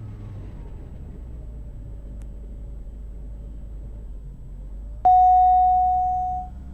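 DA50 RG's 300 hp jet-fuel piston engine, heard in the cockpit during the run-up's automatic propeller governor test: its pitch drops about a second in, holds low, and climbs back around four seconds in as the governor cycles the RPM down and up. About five seconds in, a loud single alert tone sounds for about a second and a half, fading out.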